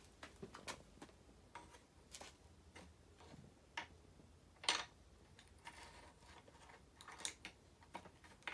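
Faint, scattered clicks and light taps of small objects being handled, with one sharper click about halfway through.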